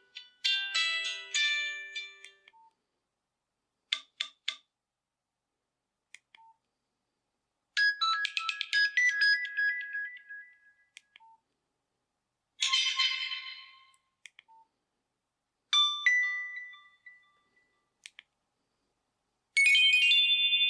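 A Nokia 6600 Slide mobile phone playing a series of short ringtones and alert tones through its loudspeaker, one after another with pauses of a second or more between them. A melody ends about two seconds in, and five or so brief chimes and beep patterns follow.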